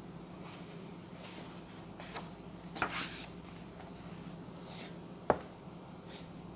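Paper pages of a large book being handled and turned: soft rustles, with the loudest swish of a page turning about three seconds in. A single sharp click a little after five seconds in is the loudest sound, over a faint steady low hum.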